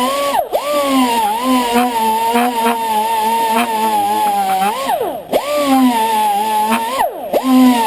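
Pneumatic air tool spinning a steel wire brush, scrubbing carbon off an engine valve with a steady high whine. Its pitch dips sharply and recovers three times, about half a second in, past the middle and near the end.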